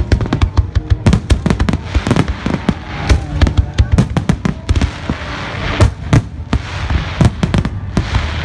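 Aerial fireworks shells bursting overhead in rapid succession: a dense run of sharp bangs with crackling between them.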